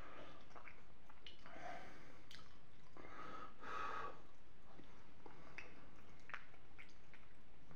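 Close-miked eating of creamy penne with béchamel and peas: short wet mouth clicks from chewing, and two longer breathy blows or snorts, about a second and a half in and again around three to four seconds in.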